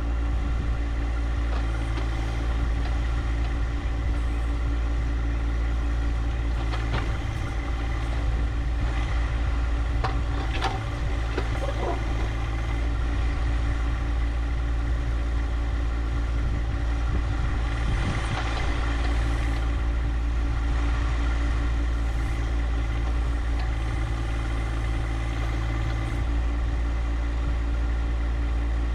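Compact tractor's three-cylinder diesel engine, a John Deere 1025R, running steadily at a constant speed, with a few brief clatters about a third of the way in.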